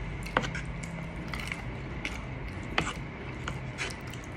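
Metal forks clicking and scraping against a wooden serving board while spaghetti is twirled up, with quiet chewing between; two sharp clicks stand out, one about half a second in and one near three seconds. A low steady hum sits under it.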